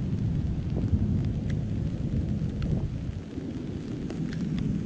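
Thunder rumbling low and continuously, with scattered raindrops ticking.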